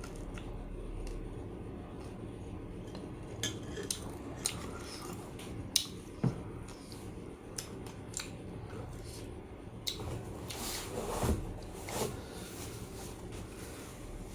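Scattered light clinks and knocks of dishes and utensils, a dozen or so irregular taps over a steady low background hum, with a few louder ones in the middle and near the end.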